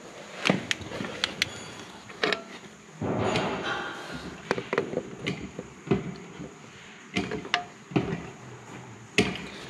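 Scattered metal clinks and knocks from hand tools worked against a Cat D7G dozer's steel gear housing, with a longer scraping stretch about three seconds in.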